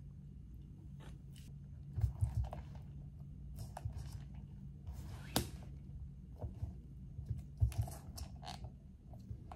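Plastic lid of an iced drink cup being pried at and pulled off: light clicks, crackles and scraping of the plastic. There are dull knocks about two seconds in and again near the end.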